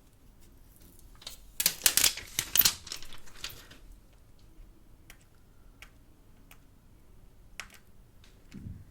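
Handling noise from a smartphone and its retail box being picked up and turned over: a dense run of clicks and rustles between about one and a half and three and a half seconds in, then a few scattered light clicks and a soft thump near the end.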